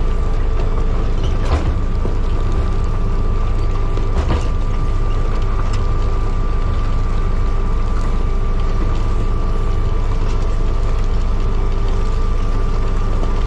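Motor grader's diesel engine running steadily, with a steady whine over the drone, while the machine works; two knocks sound about a second and a half in and again about four seconds in.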